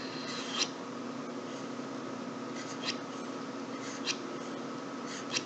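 Steady electrical hum of a small recording room, with four faint short ticks spread about a second apart.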